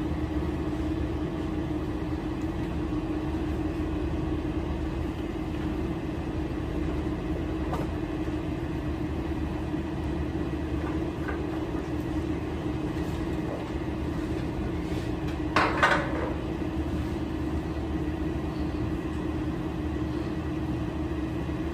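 A steady low hum with a low rumble underneath, and one brief clatter of kitchen utensils about three-quarters of the way through.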